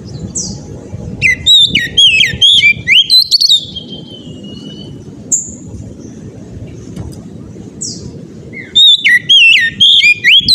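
Oriental magpie-robin (kacer) singing loudly in two bursts of rapid, varied whistled phrases, the first starting about a second in and the second near the end. Single short rising notes come in between.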